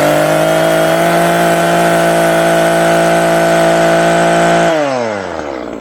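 Two-stroke chainsaw revved up to full throttle and held there for about five seconds, then dropping back to idle near the end; the owner wonders whether his fuel mix is to blame.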